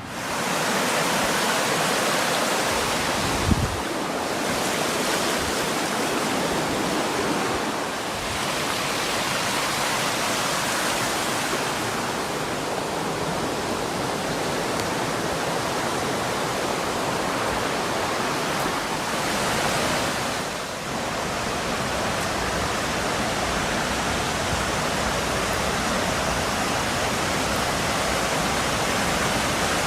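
Waterfall: a steady rush of water falling and splashing into its pool, with one short thump about three and a half seconds in.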